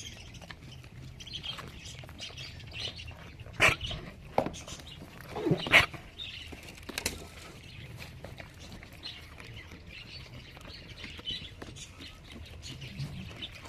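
Small birds chirping in the background, with a few sharp knocks, the loudest about three and a half and six seconds in.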